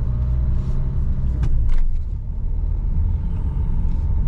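Vehicle on the move: a steady low rumble of engine and road, with a couple of brief clicks about a second and a half in.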